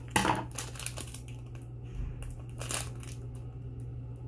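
Clear plastic packaging crinkling and rustling as fingers work at opening it, in scattered small crackles with two louder scrunches: one just after the start and one near the three-second mark.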